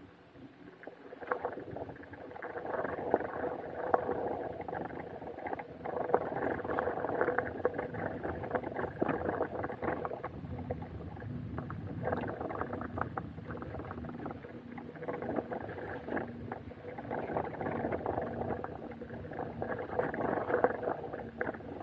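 Steady rumbling ride noise with frequent small rattles and knocks, as from riding over uneven ground, plus wind on the microphone.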